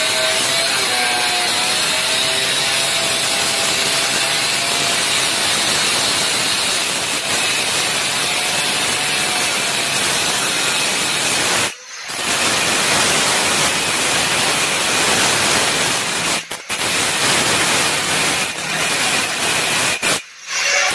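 Hand-held angle grinder with a cutting disc grinding a circular groove into a marble slab: a loud, steady grinding hiss that breaks off briefly three times in the second half.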